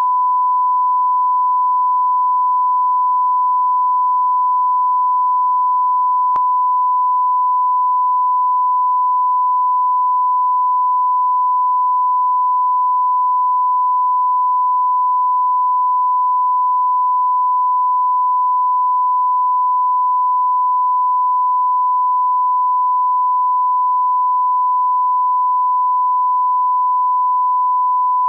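Steady 1 kHz line-up test tone, a single unbroken pure tone at constant level, played with colour bars at the head of a broadcast master so that audio levels can be set.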